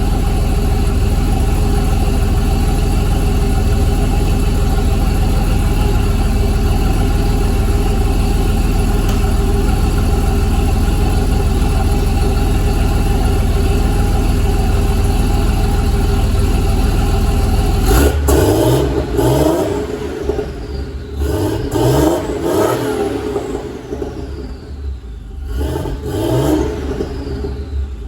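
A vehicle engine running at steady high revs for about 18 seconds. It then drops off and is blipped up in short rising revs, about five times, over the last ten seconds.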